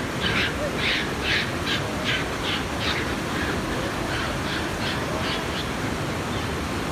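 Japanese macaques giving a run of short, harsh, high-pitched screeching calls, about two or three a second, thinning out after about three seconds, over the steady rush of a river.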